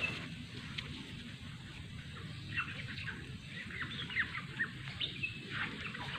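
Newborn puppy squeaking: short, high-pitched squeals in quick clusters while it is handled, with faint rustling underneath.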